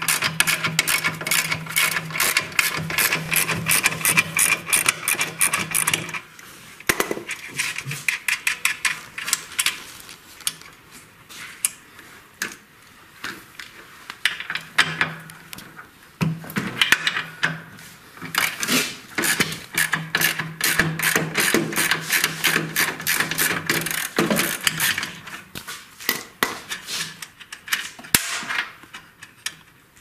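Ratchet wrench clicking rapidly while the bolts holding a washing-machine motor are unscrewed. It goes in two long runs of fast clicks with scattered clicks between and after.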